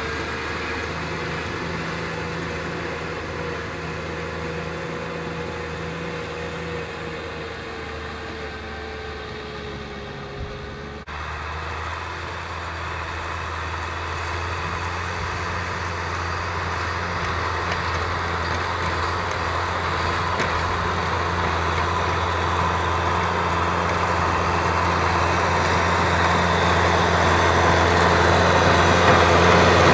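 Kubota M6040SU tractor's four-cylinder diesel engine running steadily under load while pulling a disc plough through dry field stubble. The sound changes abruptly about eleven seconds in. From there the engine grows steadily louder as the tractor comes closer.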